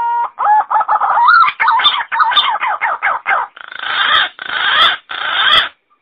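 Green pigeon (punai) song played as a hunting lure call: a quick run of wavering whistled notes that bend up and down, breaking into three longer, hoarser phrases in the last two seconds and stopping abruptly.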